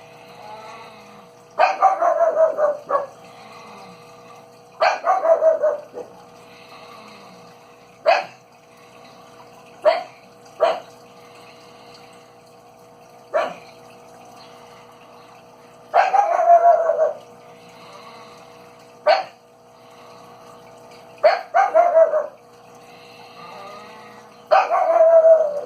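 A dog barking and yelping again and again: about ten calls, long falling-pitch cries of about a second mixed with short sharp yips, over a faint steady two-note hum.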